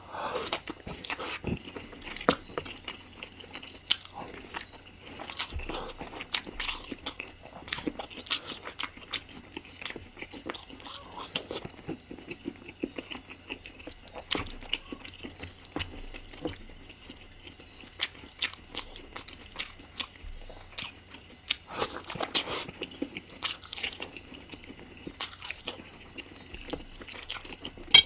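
Close-miked eating of spicy chicken curry: steady chewing and biting, with many irregular sharp crunches.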